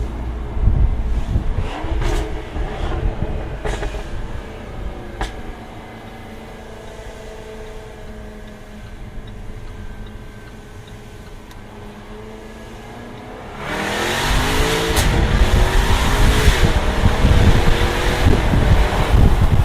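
Jaguar F-Type R's supercharged 5.0-litre V8 on the move. Over the first five seconds a few sharp exhaust cracks break through the engine note, then it settles to a quieter steady cruise. About 13.5 s in it opens up into hard, loud acceleration, the note rising in steps through the gears.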